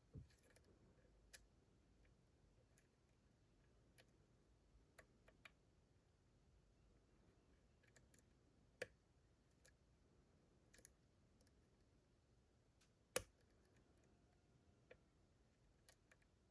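Faint, irregular clicks of a lock pick working the pins inside a Dorma DC500 lock cylinder, with sharper clicks about 9 seconds in and the loudest about 13 seconds in.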